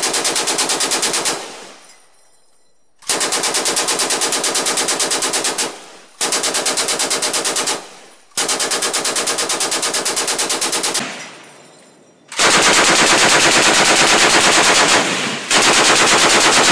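Belt-fed machine gun firing long bursts of automatic fire: one burst ends just after the start, four more follow with short pauses between, and the last two, from about twelve seconds in, run longer.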